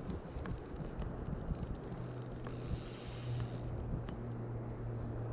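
Rushing river water and fabric rubbing close to the microphone, with a steady low hum that strengthens about two seconds in and a few light clicks.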